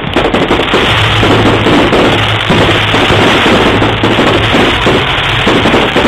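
Fireworks display at close range: a dense barrage of shell bursts and crackle that runs together into one continuous loud noise, recorded on a mobile phone.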